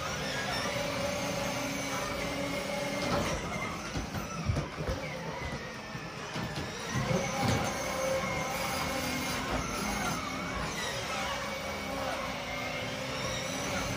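Electric motors and gearboxes of children's battery ride-on toys, a quad bike and a ride-on car, whining steadily as they drive across a wooden floor. The pitch rises and falls now and then as they speed up and slow down, with a few knocks.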